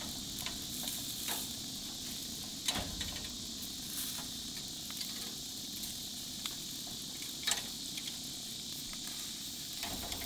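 Steaks sizzling on the pulled-out tray of a Schwank 1500-degree infrared grill, fresh from a minute's sear at the top setting, with a few sharp clicks of metal tongs against the meat and tray as the steaks are flipped.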